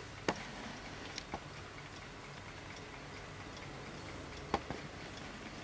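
Vintage 1960s Mauthe ceramic 8-day kitchen wall clock ticking, its mechanical movement running. A few sharper clicks stand out, about a second in and again near the end.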